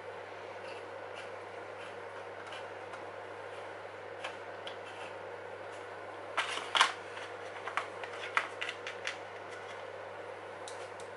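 Faint steady hum and hiss with a quick cluster of small clicks and knocks about six to seven seconds in, then a run of lighter clicks and two more near the end: hands handling small plastic parts of an RC truck model.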